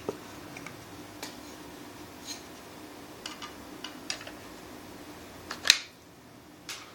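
Light clicks and taps of a wood-handled knife being handled, with a sharp click a little before the end, over a faint steady hum.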